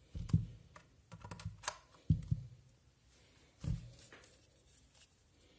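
Handling noises: a handful of plastic clicks and light knocks as a USB cable's plug is pushed into a power bank's port and a small plastic device is picked up off the table. The last knock comes a little after three and a half seconds in.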